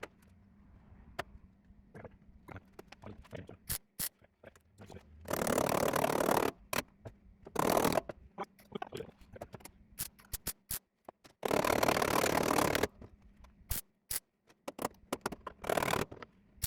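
MIG welder tacking thin sheet steel, set to its minimum power: three short bursts of crackling arc, the longest about a second and a half, with scattered sharp clicks and ticks between them.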